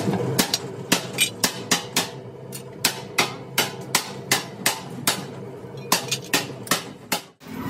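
Rapid sharp metallic strikes, like a hammer hitting steel, about three a second with a short ring after each, over a faint steady hum. They stop shortly before the end.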